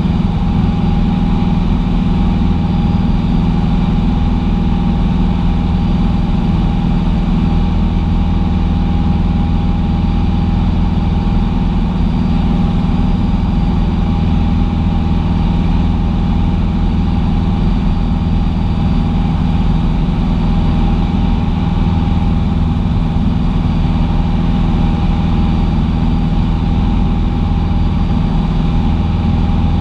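Cessna 150's four-cylinder air-cooled Continental O-200 engine and propeller running steadily at constant power, a continuous drone with no change in pitch.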